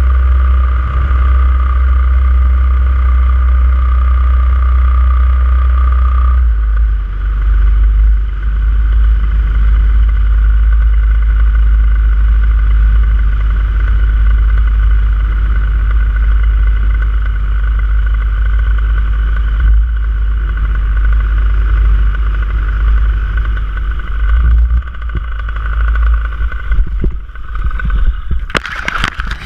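Paramotor engine and propeller running steadily under power, its note shifting about six seconds in as the throttle changes. Near the end the sound turns uneven and drops away as the engine is shut down for landing.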